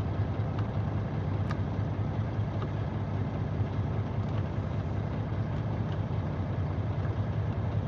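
International semi truck's diesel engine idling steadily with a low, even hum, heard from inside the cab.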